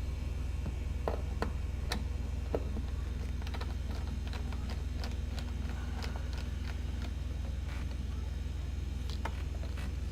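Scattered clicks and ticks of a screwdriver working the screws of a cover plate on the back of a refrigerator, over a steady low hum.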